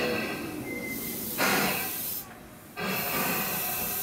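Hissing air under a Tobu 10030 series train as it starts to move, coming in spurts. It is loudest about a second and a half in and stops briefly about halfway through before hissing again.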